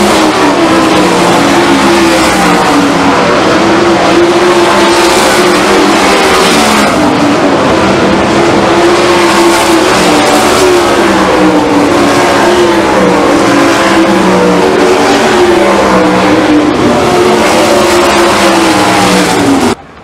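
Several 410 sprint cars running at racing speed, their methanol-burning 410-cubic-inch V8s very loud, with pitch rising and falling as cars pass and go through the turns. The sound cuts off abruptly just before the end.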